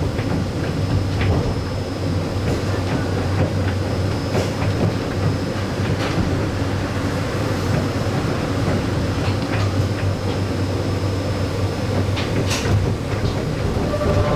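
Suspended monorail car of the Ueno Zoo line running along its track, heard from inside the driver's cab: a steady low drone of the motors and running gear, with a few short clicks and knocks along the way.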